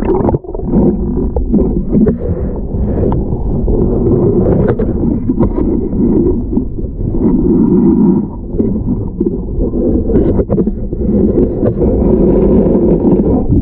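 Muffled underwater rumble of water moving against a submerged camera, with a few sharp knocks scattered through it.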